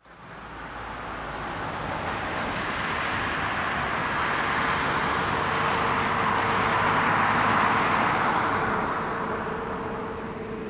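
Jet engines of an Airbus A321 freighter at taxi power: a steady rushing noise with a faint steady whine underneath. It fades in, swells to its loudest about seven or eight seconds in as the aircraft passes closest, then eases a little.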